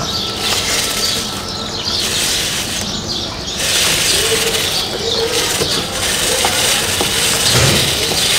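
Stiff plastic chain brush scrubbing a kerosene-wetted motorcycle drive chain: a rough, bristly scrubbing in repeated strokes, getting louder a little past the middle.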